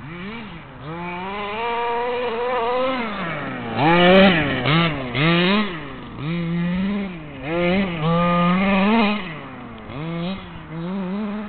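5T large-scale RC truck's KM 29cc two-stroke engine revving up and down over and over as it is driven, its pitch rising and falling with each burst of throttle. The loudest bursts come about four seconds in and again near eight seconds.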